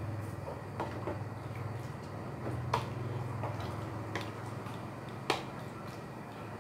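Wooden spoon stirring stew in a metal pot, knocking against the pot a few times in sharp clicks, the loudest about halfway through and near the end, over a steady low hum.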